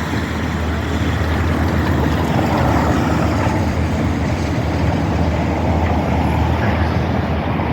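Steady rumble of a motor vehicle's engine and road noise, a constant low hum with no breaks.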